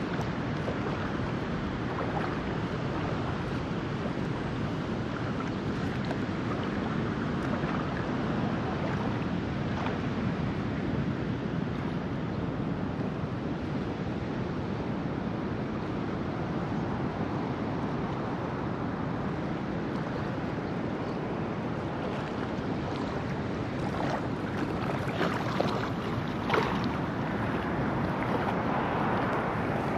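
Steady wind buffeting the microphone over open river water, with water lapping and sloshing around the legs of people wading. A few short sharp sounds stand out near the end.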